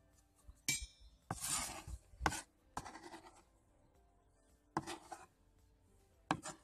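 Kitchen utensils and dishes being handled: about five sharp knocks and clinks spread out, the first with a short ringing. A brief scrape follows it.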